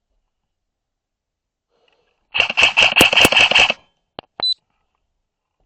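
Airsoft electric rifle firing a full-auto burst: a rapid run of sharp cracks with a steady mechanical whine under it, starting about two seconds in and lasting just over a second. Two single sharp clicks follow shortly after.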